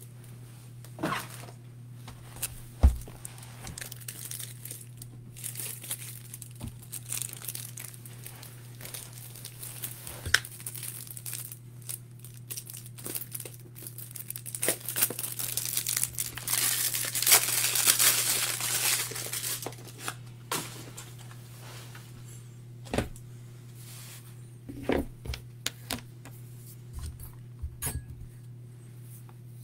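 Trading-card boxes and their packaging being handled on a tabletop: scattered knocks and clicks as things are set down and moved, and several seconds of crinkling and tearing a little past the middle, over a steady low hum.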